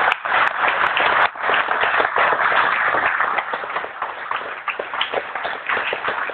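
Audience applauding at the end of a speech: many people clapping densely and loudly, easing off a little over the last few seconds.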